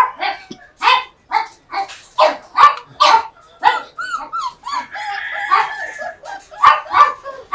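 Dogs barking and yipping over and over in quick, sharp calls, about two a second.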